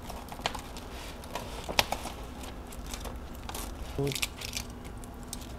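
Adhesive vinyl decal film rustling and crinkling as the cut excess is peeled off its backing sheet and picked from the letters, with scattered light clicks and ticks and one sharper click.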